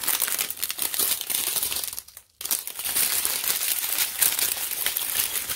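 Small plastic bags of diamond-painting drills crinkling and rustling as they are handled, with a brief pause about two seconds in.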